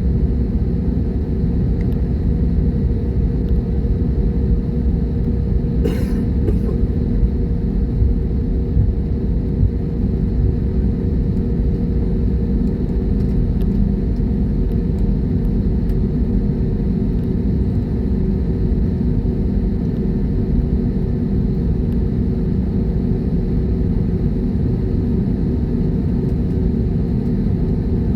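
Jet airliner engines running with a steady low rumble and a steady hum, with one short click about six seconds in.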